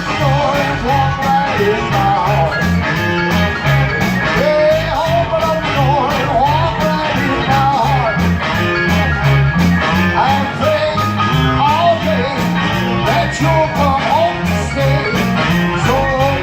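Live rock and roll band playing a stretch without sung words: electric guitar over a stepping bass line and drums keeping a steady beat.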